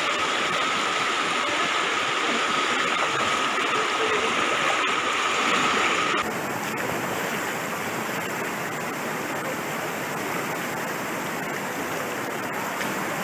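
Fast-flowing floodwater rushing and spilling over ground and past a wall, a steady, even rush of water. About six seconds in the sound changes abruptly to a slightly quieter, duller rush; before that a faint steady high tone sits over it.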